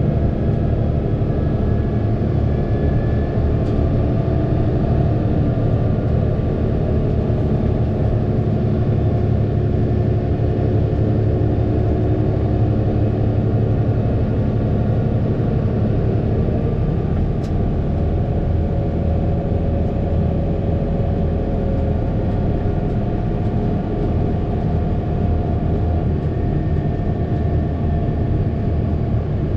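Fendt 936 Vario tractor's six-cylinder diesel engine running steadily at a constant pitch.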